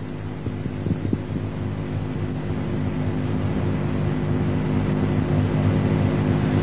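A noisy wash of audience noise that swells steadily louder, typical of a crowd calling out in approval between verses of a live Quran recitation, over a steady low electrical hum.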